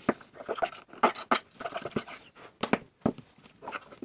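Irregular scratching and rubbing strokes with a few sharp clicks, from hand-cleaning the parts of an old box camera.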